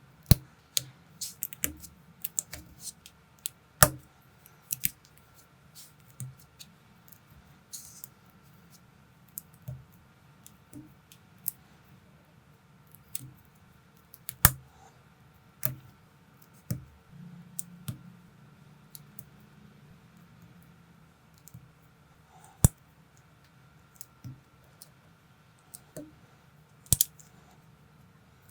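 Small plastic building-brick and minifigure parts clicking and snapping together by hand, in scattered irregular clicks with a few sharper, louder snaps.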